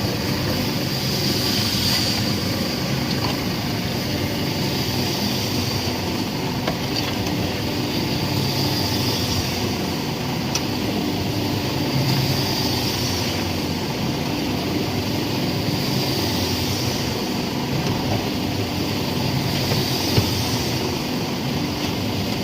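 Pan-type concrete mixer running: a steady mechanical rumble, with a higher hiss that swells and fades about every three and a half seconds as the mixer turns.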